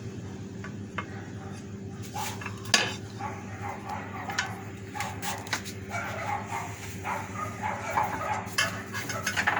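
Metal clinking and clattering as tools and parts of a meat slicer are handled, with scattered sharp clicks and the loudest knock a little under 3 seconds in, over a steady low hum.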